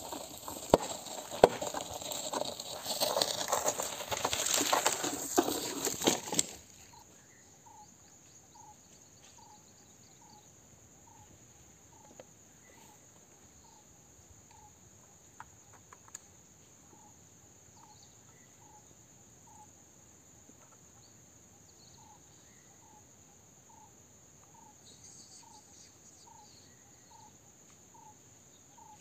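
Footsteps on dry grass and leaves, loud and close, for about the first six seconds. The sound then stops abruptly and leaves a quiet background: a steady high insect drone, with a short chirp repeating a little more than once a second.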